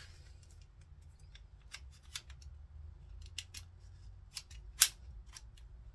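Several light metallic clicks of a Ruger Mark IV Lite pistol being handled as it is put back together, with one sharper click about five seconds in.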